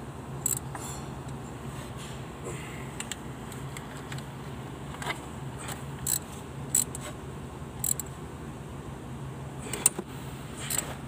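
Several sharp metallic clicks and clinks, spread irregularly, as tools and parts are handled in a car's engine bay, over a steady low hum.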